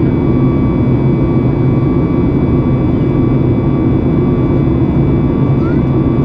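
Steady cabin noise of a Boeing 737 MAX 8 in flight, heard from a window seat: a constant low rumble of its CFM LEAP-1B engines and rushing air, with a few faint steady tones above it.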